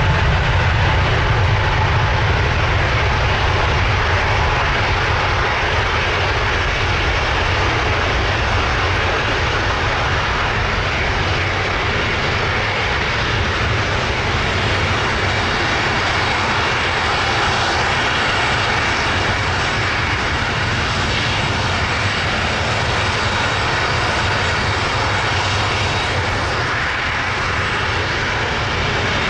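Airbus A321neo's twin turbofan engines at takeoff power: a steady heavy rumble and jet roar as the airliner rolls down the runway and climbs away, with a thin whine in the first few seconds.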